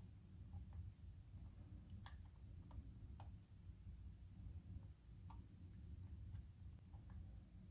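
Faint, scattered clicks of a dimple lock pick working the pins of a 6-pin dimple lock under tension, pins clicking as they set; the loudest click comes about three seconds in, over a low steady hum.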